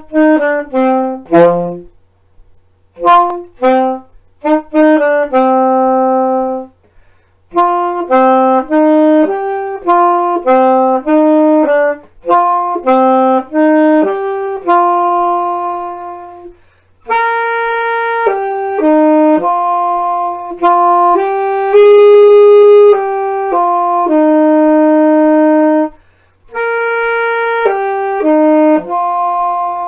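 Solo alto saxophone playing a melody with no accompaniment: short, detached notes in the first few seconds, then longer held notes, with several brief rests between phrases.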